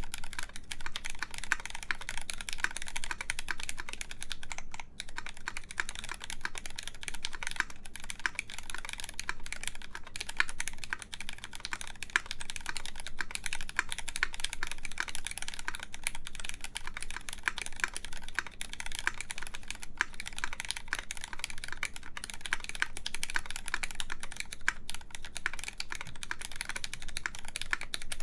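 Continuous fast typing on a KMAC Happy mechanical keyboard with lubed Cherry MX Black Clear Top linear switches, 60g springs, an aluminum full plate in a top mount, and GMK keycaps: a dense, unbroken stream of keystrokes.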